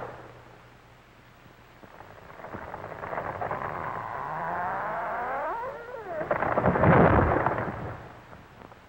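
Large felled conifer coming down: a rushing sound that builds over a few seconds with several glides falling in pitch, then a heavy crash about seven seconds in as the trunk hits the ground.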